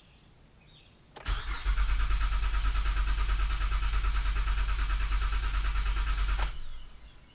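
2008 Honda Odyssey's 3.5-litre V6 being cranked by the starter with a rapid, even pulsing, for about five seconds. It then stops abruptly without catching: the engine cranks but won't start.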